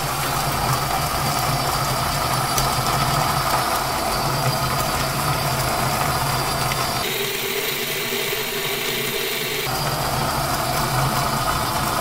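Breville BCG-6500XL conical burr coffee grinder running steadily, its small electric motor turning the burrs as beans are ground; the switch and timer are bypassed, so the motor runs continuously off the mains. About seven seconds in, the low hum drops away for about three seconds before returning.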